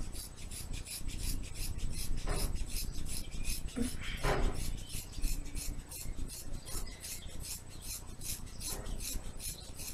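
Scissors cutting through a thick ponytail of long hair: a steady run of short snips, several a second.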